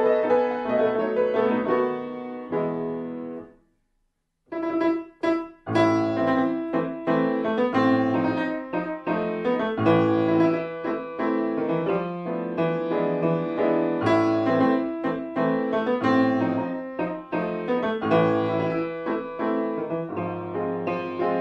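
Solo grand piano playing classical music: full, dense chords and fast passages. About four seconds in, the sound drops to silence for about a second, then comes back with a few short, separated chords before the playing runs on without a break.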